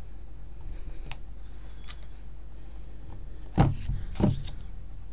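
Stamp pressed down onto card stock on a table: a few light taps, then two dull thumps about two-thirds of a second apart near the end as the tree image is stamped onto the cards.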